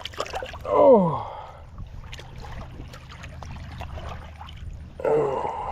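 Small, irregular water splashes and trickling at the side of a kayak as a tired blue catfish is held in the river for release, with a man's short 'oh' about a second in.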